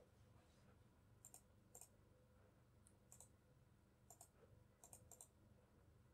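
Faint computer mouse button clicks, scattered and some in quick pairs, over near silence.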